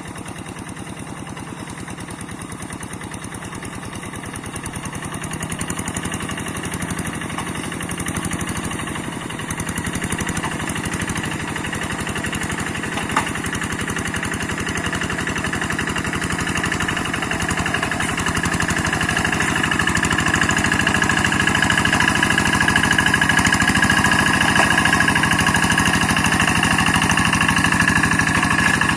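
Two-wheel hand tractor's diesel engine running with an even, rapid beat, growing steadily louder over the first two-thirds. A single sharp click comes about 13 seconds in, and a thin steady whine rides over the engine in the latter half.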